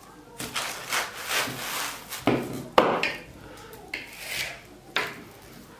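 Plastic cling film rustling and crinkling as it is pulled off the roll and spread over a wooden cutting board, with a few sharp scrapes as a knife cuts the sheet against the board, the loudest about two and three-quarter seconds in.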